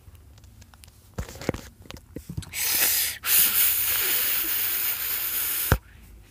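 A few light knocks from toy figures being handled, then a loud, steady hiss lasting about three seconds, broken briefly near its start and ending in a click.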